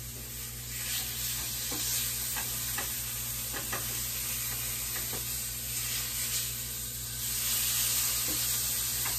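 Breakfast sausages sizzling in a frying pan, with scattered light taps of a utensil as they are turned. The sizzle grows louder about seven seconds in.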